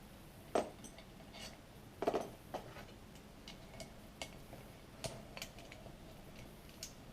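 Irregular metallic clicks and clinks from a hand screwdriver and small steel screws as the case screws of a 66cc two-stroke bicycle engine are worked out by hand. The loudest clanks come about half a second and two seconds in.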